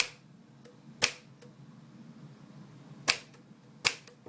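Smith-Corona manual typewriter keys struck one at a time: four sharp clacks of the typebars hitting the platen, irregularly spaced. This is a test of a key that is still sticking.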